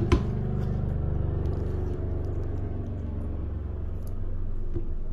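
Helicopter flying overhead, a low, steady rotor drone. A single sharp click sounds just after the start.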